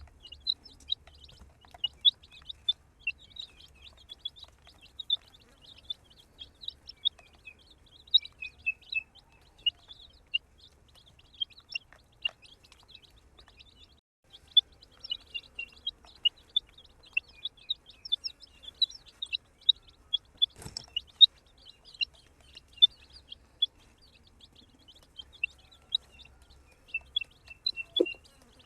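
Baby chicks peeping, a steady stream of short high chirps from several birds overlapping. A single sharp knock about two-thirds of the way through.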